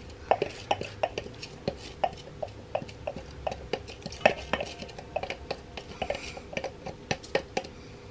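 Plastic food processor bowl knocked and tapped against a stainless steel mixing bowl to shake chopped green onions loose: a run of sharp, uneven knocks, about three a second.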